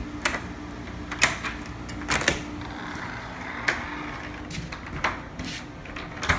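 Irregular knocks and clicks, about ten of them, from a person walking and handling a door. Under them runs the steady low hum of a running window air conditioner.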